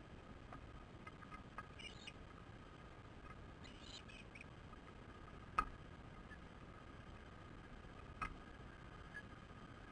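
Faint outdoor ambience of a low steady hiss, with brief faint high squeaky chirps around two and four seconds in and two sharp clicks about two and a half seconds apart in the second half.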